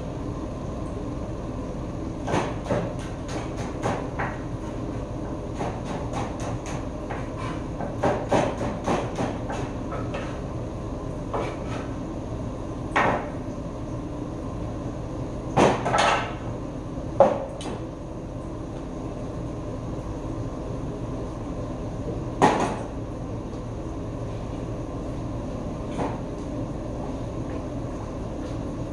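Kitchen knife chopping on a wooden cutting board: irregular runs of quick taps for the first ten seconds or so, then a few louder single knocks, over a steady background hum.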